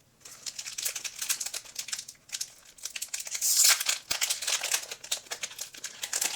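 Pokémon card pack packaging crinkling and being torn open by hand, with a louder rip about three and a half seconds in.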